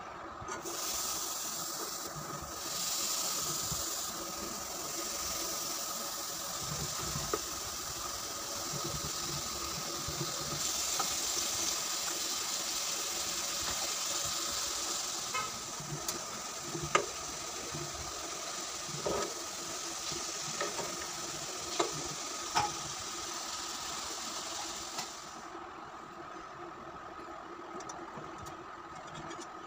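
Chicken tikka skewers sizzling in a hot nonstick frying pan: a steady hiss, with a handful of sharp clicks and pops in the second half. The sizzle drops away a few seconds before the end.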